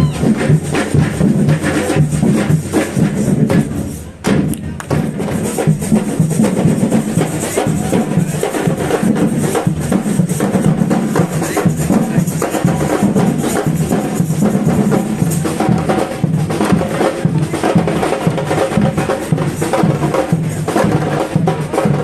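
Live music with dense, driving percussion and a steady rhythm of strikes. The music dips briefly about four seconds in, then carries on.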